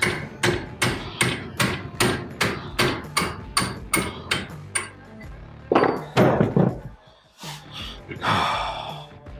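Hand sledge hammer striking a 1955 Buick Special's front spindle held in a bench vise, driving out the stuck kingpin: a fast, even run of metal-on-metal blows, about three a second. The blows stop about five seconds in, followed by a few heavier knocks and a short rasping noise near the end.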